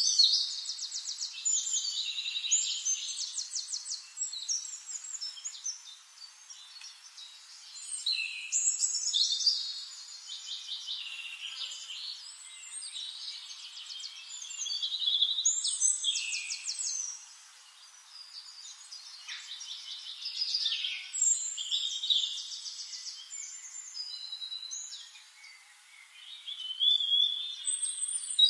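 Songbirds singing: high-pitched chirps and fast rattling trills in phrases a few seconds long, repeating about every six or seven seconds.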